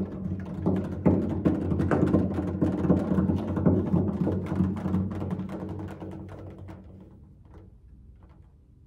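Cello played with extended techniques: a rapid, dense stream of percussive plucks and strikes over a low ringing note, thinning out and fading away over the last few seconds.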